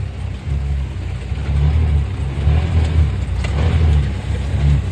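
Can-Am side-by-side driving at speed, its engine and the ride making a loud low rumble that swells and dips unevenly.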